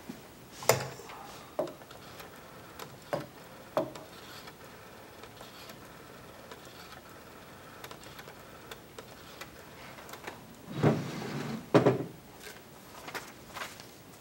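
Small knocks and clicks of objects handled on a wooden desk, a few spaced knocks early on, then a louder clatter of knocks around eleven and twelve seconds in as a vintage desk telephone's handset is picked up.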